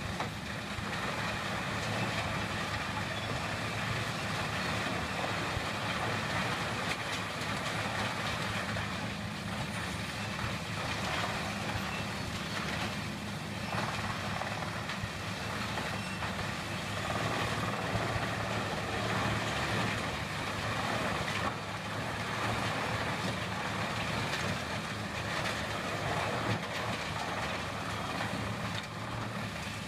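Vermeer HG4000 horizontal grinder running steadily under load: its diesel engine drones while the mill grinds waste wood.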